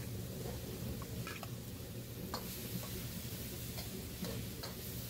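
Metal spatula and ladle knocking and scraping against a wok while stir-frying, a few scattered clicks over a steady low hum and hiss.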